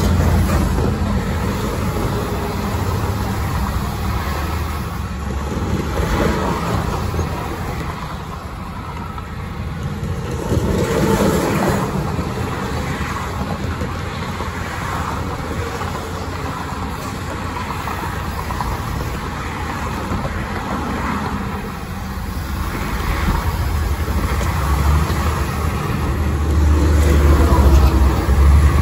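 Highway driving noise: tyres on concrete interstate pavement and a steady low engine and road rumble, with traffic passing alongside, including a semi-truck near the start. The rumble swells again toward the end.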